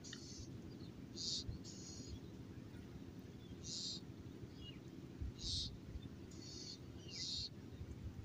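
Birds calling with short high chirps, about six of them spaced a second or two apart, over a steady low rumble.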